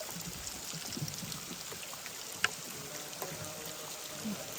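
Water trickling and dripping, with scattered small drips and one sharp click about two and a half seconds in.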